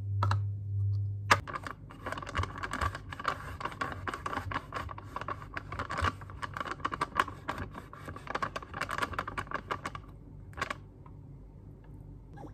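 Fast typing on a MacBook laptop keyboard: a dense run of keystroke clicks starts about a second in and stops about two seconds before the end. A low hum sounds in the first second.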